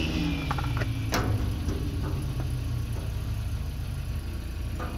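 A steady low mechanical hum, with a few light clicks and a sharper click about a second in.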